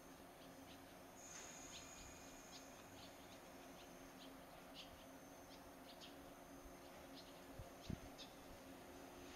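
Near silence, with faint short bird chirps scattered through it. A faint steady high whine comes in about a second in, over a faint low hum, and there is one soft thump near the end.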